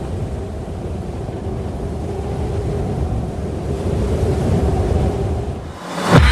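Snowmobile engine running at a steady speed, with wind buffeting the microphone. A loud sudden sound cuts in right at the end.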